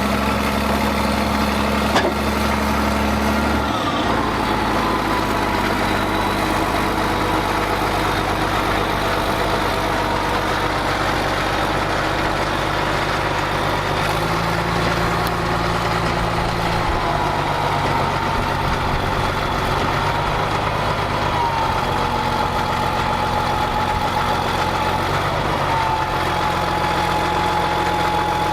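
Cat D6D dozer's six-cylinder diesel engine running steadily, its speed shifting several times as the machine is worked, with a single sharp click about two seconds in. It sounds healthy.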